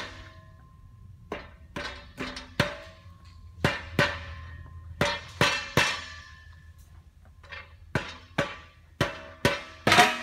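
Rubber mallet striking the stainless steel end cap of an 8-inch RO membrane column, about fifteen sharp knocks in uneven groups, each with a short metallic ring. The cap is being knocked loose past the O-ring that seats it in the column.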